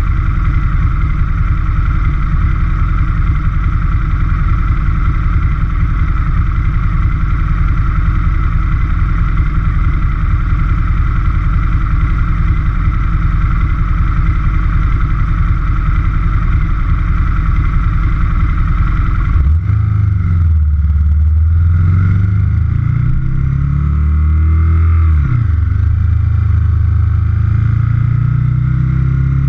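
Aprilia Futura's 1000 cc V-twin engine idling steadily while stopped, then, about two-thirds of the way through, pulling away and revving up through the gears, the pitch rising, dropping at a shift and rising again.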